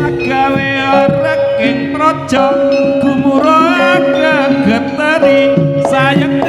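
Loud Javanese jaranan sentherewe music: a gamelan-style ensemble with quick hand-drum strokes and held gong-chime tones under a wavering melody line with vibrato.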